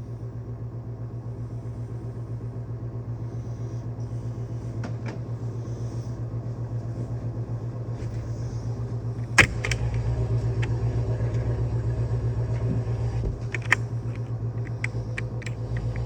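Car engine idling steadily, with two sharp clicks, about nine and about thirteen seconds in. The engine runs a little louder after the first click.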